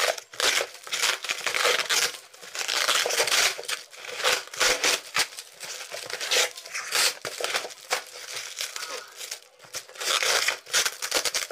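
Plastic packaging crinkling and rustling in irregular bursts as it is handled and torn open during an unboxing.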